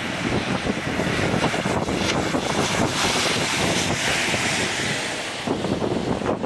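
Wind buffeting the microphone over the steady running of truck engines, with a hissing swell about halfway through.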